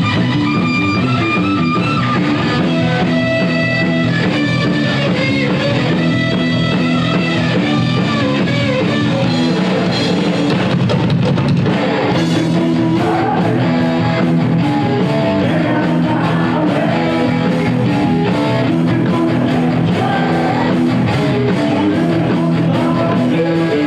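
Live heavy metal band playing: distorted electric guitar over a drum kit, loud and continuous.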